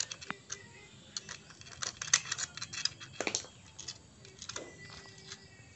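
Light metallic clicks, clinks and jingles at irregular intervals, louder about two and three seconds in: the timing chain and small metal parts of a Yamaha Vixion engine being handled and fitted during reassembly.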